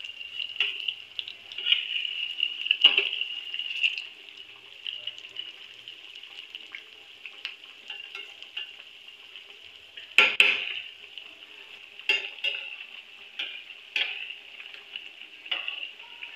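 Singhara-flour and potato kachoris deep-frying in hot peanut oil in a metal kadhai, a steady high-pitched sizzle. A perforated metal slotted spoon scrapes and clinks against the pan now and then as they are turned, loudest about ten seconds in.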